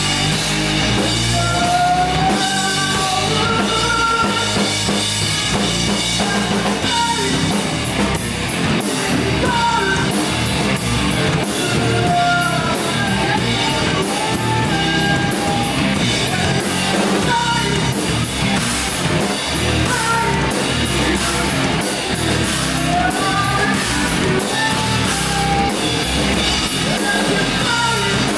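Live rock band playing: electric guitars through amplifiers, bass and a drum kit, with a singer's vocals over the top.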